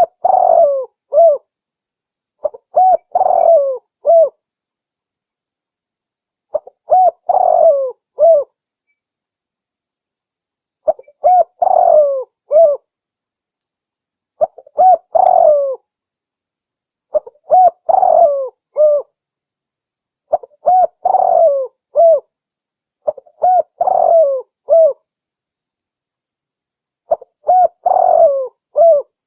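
Spotted dove cooing: a lure call for trapping doves, repeated as a phrase of several short coos about every three seconds with clean silence between phrases.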